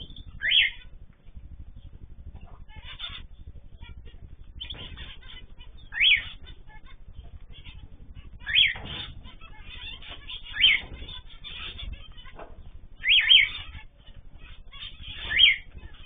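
Cockatiels calling: about six loud, short, sweeping whistled calls, one every couple of seconds, over faint twittering of small aviary birds.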